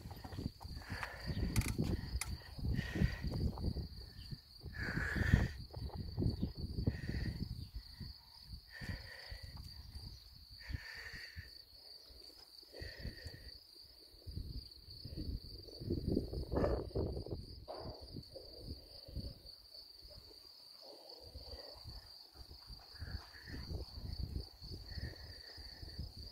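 Crickets singing in a steady, high, pulsing trill, with gusts of wind rumbling on the microphone and short calls repeating every second or two.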